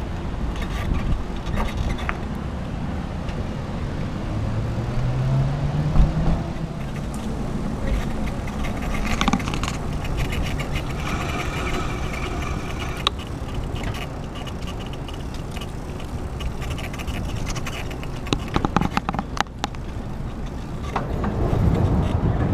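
Bicycle riding noise on brick pavers: a steady low rumble of wind on the microphone and tyres, with car traffic passing. A vehicle engine rises in pitch about five seconds in, and a few clicks and rattles come near the end.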